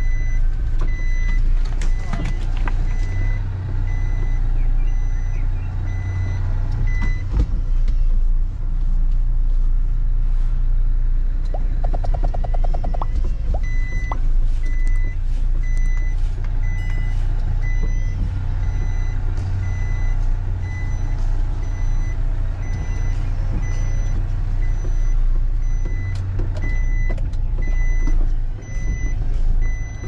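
Truck engine running at low revs, heard from inside the cab, with the truck's reversing alarm beeping at about one and a half beeps a second while it backs up. The beeping stops for several seconds around the middle, then starts again.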